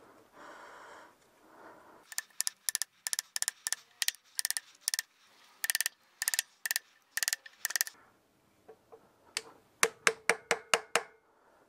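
Light metallic taps repeated at about two or three a second for several seconds, then a quicker run of sharper taps near the end: a new crankshaft oil seal (joint SPI) being tapped into place on a Citroën 2CV's 602 cc flat-twin engine.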